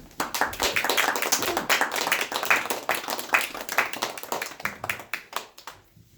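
Audience clapping, a dense run of separate claps that thins out and stops near the end.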